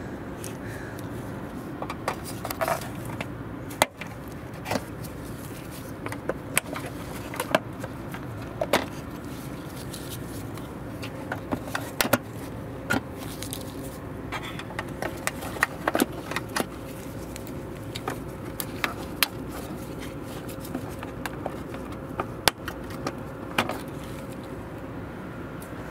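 Irregular sharp plastic clicks and small metal tool ticks as push-clip plugs are pried out of a plastic engine-bay cover with a small flat-head screwdriver, over a steady outdoor background hum.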